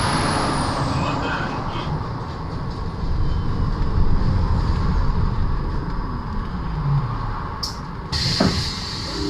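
MAZ-203T70 trolleybus heard from inside, running and then slowing to a stop: a steady mix of electric drive and road noise, with the drive's whine falling in pitch as it slows. A hiss starts near the end as it halts.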